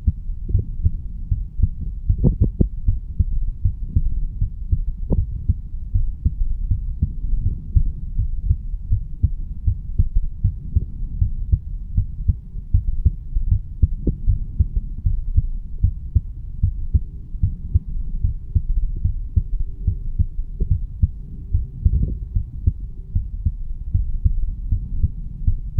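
A 35-year-old man's heartbeat, recorded against the chest over the mitral (bicuspid) valve area: a continuous run of low, repeated thumps.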